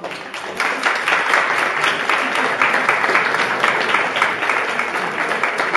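Audience applauding, a dense clatter of many people clapping that starts about half a second in and holds steady.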